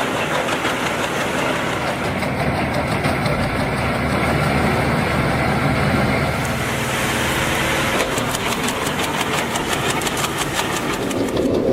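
Wood chipper running, its engine drone mixed with the rough noise of wood being shredded; a rapid clatter sets in about eight seconds in.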